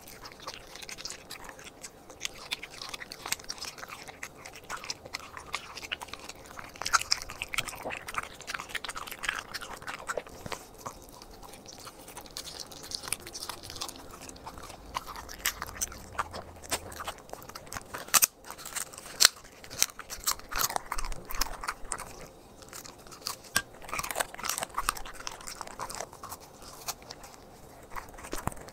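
Corgi chewing and crunching raw meat taken from a hand, a steady run of wet bites and crunches with a few louder crunches about seven and nineteen seconds in.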